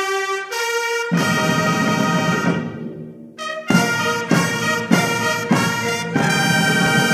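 Brass fanfare intro music: held brass chords, then a run of short accented chords about every 0.6 s, ending on a long held chord.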